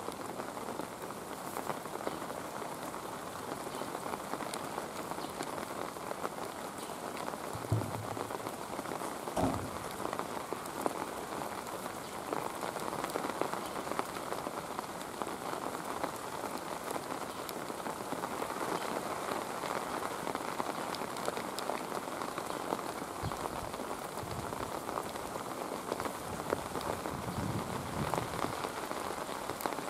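Steady rain falling, with two dull thuds about eight and nine and a half seconds in.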